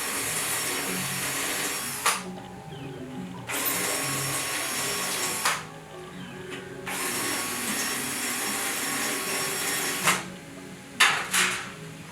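A power drill, as used for deburring, runs in three bursts of a few seconds each with short pauses between. A few sharp clicks fall between the runs.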